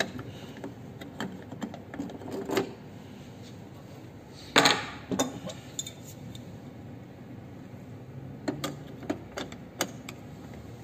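Scattered metallic clicks and clinks of hand tools and parts as a medical oxygen wall outlet is taken apart: the cover comes off the brass outlet fitting and an adjustable wrench goes onto it. A louder burst comes about four and a half seconds in.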